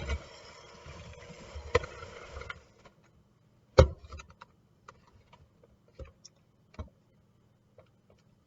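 Electric hand mixer running in a bowl of buttercream frosting and switching off about two and a half seconds in. A sharp knock follows, likely the beaters or a utensil against the bowl, then scattered light clicks.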